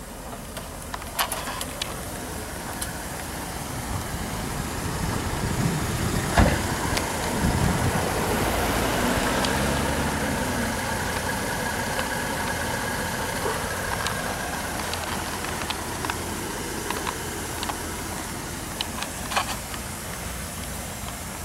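1989 Rolls-Royce Corniche II's V8 engine running at low speed, growing louder to a peak a few seconds in and then slowly easing off. A sharp thump comes about six seconds in, with a few light clicks early and near the end.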